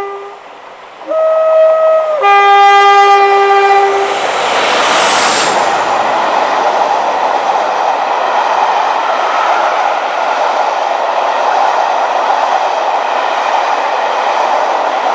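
Class 47 diesel locomotive sounding its two-tone horn, a high note about a second in followed by a lower note, the end of an earlier low note just before. The locomotive and its train then pass close by, a loud steady mix of engine and wheel noise.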